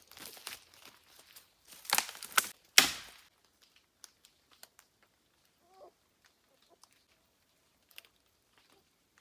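Footsteps crunching through dry fallen leaves, a few heavy steps loudest about two and three seconds in, then mostly quiet with faint scattered ticks.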